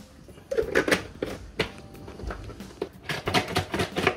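Irregular clicks and knocks of kitchen items being handled, over light background music.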